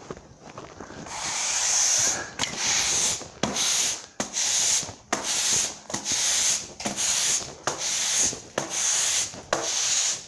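Broom sweeping a concrete shop floor: about ten brisk scraping strokes, roughly one a second, starting about a second in.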